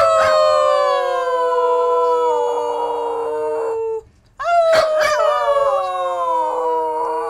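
A dog howling: one long howl that sinks slowly in pitch and stops about four seconds in, then after a short pause a second long howl that falls the same way.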